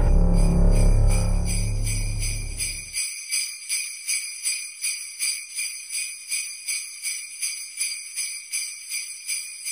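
Sleigh bells jingling in a steady shaken rhythm, a little over two shakes a second. A low rumble fades out under them over the first three seconds.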